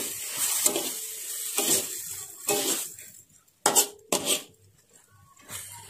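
Metal spatula scraping and clanking against a wok while stir-frying, in a series of irregular strokes, with two louder clanks a little past the middle.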